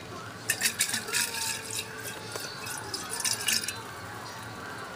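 Denatured alcohol sloshing around inside the glass base of a kerosene lamp, a run of splashy liquid sounds lasting about three seconds before it stops. The alcohol is being worked around to dissolve old paraffin-oil residue.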